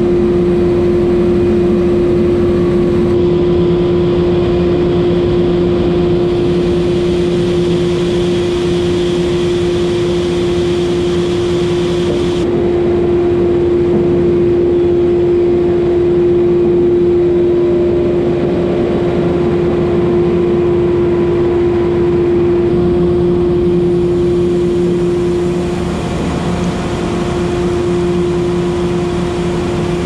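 Mobile grain-rolling lorry running steadily, sucking barley from the heap through its intake hose and rolling it, with a constant machine hum over the rush of grain and air.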